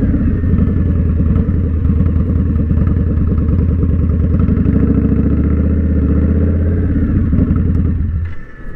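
2019 Indian Scout Bobber's V-twin, breathing through a Two Brothers Comp S 2-into-1 exhaust, running at low revs as the bike is brought in to park, then shut off about eight seconds in.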